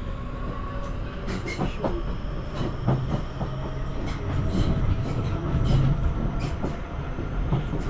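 Southeastern electric passenger train running along the track, heard from inside the carriage: a steady low rumble with irregular clicks and knocks as the wheels pass over the rails.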